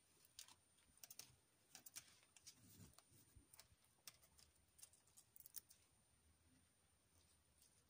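Faint small clicks and rustles of beaded wire and floral tape being handled and wrapped onto a stem, coming in quick irregular clusters for the first six seconds or so, then thinning out.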